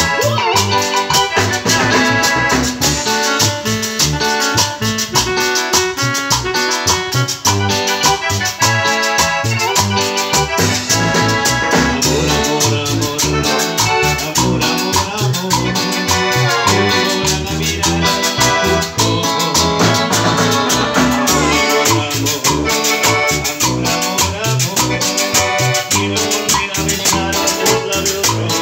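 A live Latin dance band played loud through a PA: electronic keyboards and a bass line over a steady, even beat, with a metal güira scraped in rhythm.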